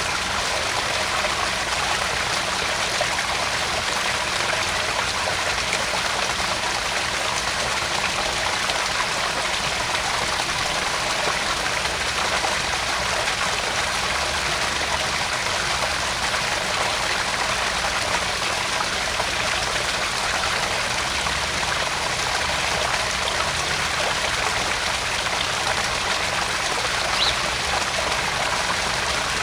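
Small garden pond waterfall: water spilling and splashing steadily into the pond with an even, unbroken rush.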